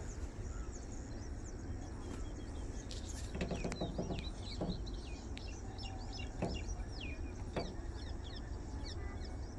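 Small birds chirping in quick, high, sliding notes, many overlapping, over a steady low rumble, with a few sharp clicks.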